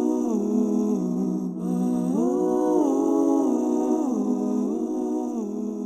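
Wordless vocal intro music: a voice humming long held notes that glide slowly up and down, fading out near the end.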